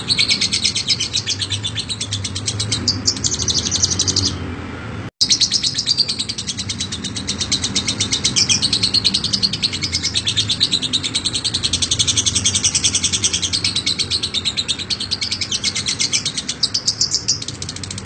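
Fischer's lovebird giving its long 'ngekek' chatter: a fast, unbroken stream of high chirps. The sound drops out for a moment about five seconds in, then picks straight up again.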